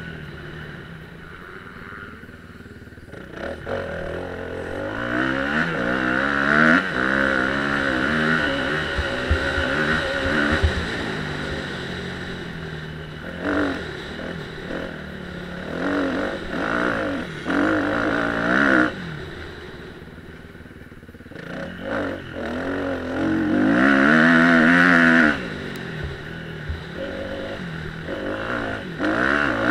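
Motocross bike engine being ridden hard, its pitch repeatedly climbing and falling as the rider opens and shuts the throttle, with two short lulls where the throttle is rolled off, a couple of seconds in and about two-thirds of the way through.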